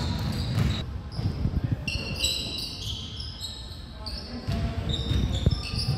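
Basketball game play on a hardwood gym floor: sneakers squeak in many short, high-pitched chirps over thuds of the dribbled ball and players' feet, with voices in the background.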